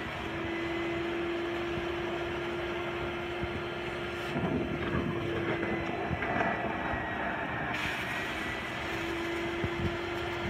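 Carpet extractor's vacuum suction pulling flood water out of a soaked carpet through a stainless extraction wand: a steady rush of air and water over a constant hum and a faint high whine from the vacuum motor.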